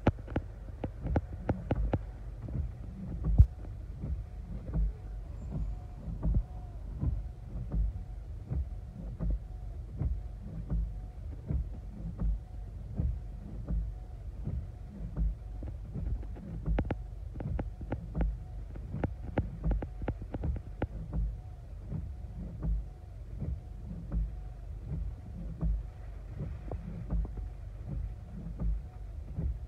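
Gusty wind buffeting a car and rain striking its windshield, heard from inside the cabin: a steady low rumble broken by irregular low thumps and sharp taps, about one or two a second.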